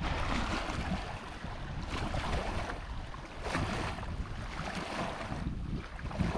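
Wind on the microphone over lapping lake water: a steady rush that swells and eases every second or so.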